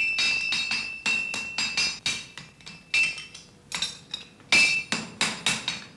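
Hammer blows ringing on an anvil as a horseshoe is worked, several strikes a second in short runs with brief pauses, each leaving a high metallic ring. These are the blows that punch the shoe's nail holes.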